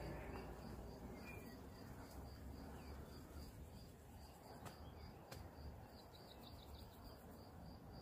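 Faint outdoor quiet with an insect chirping steadily in the background, a short high note repeated about three times a second.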